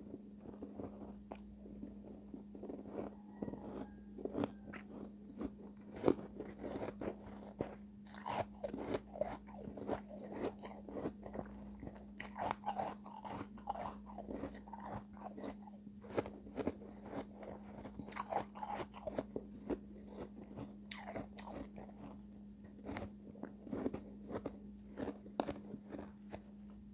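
Close-miked biting and chewing of refrozen shave ice: a long run of crisp, icy crunches.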